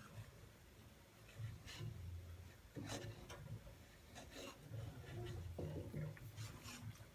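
Faint scraping of a wooden spatula stirring hot milk in an aluminium pan, in irregular strokes.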